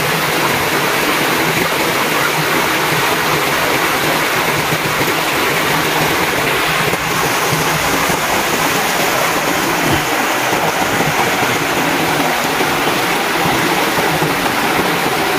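Shallow rocky creek running over stones close to the microphone: a steady, even rush of water.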